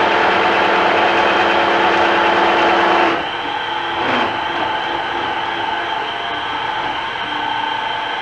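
Milling machine running, its gears whining steadily while the head with its boring tool is lowered. About three seconds in that drive stops, the machine runs on more quietly, and there is a single knock about a second later.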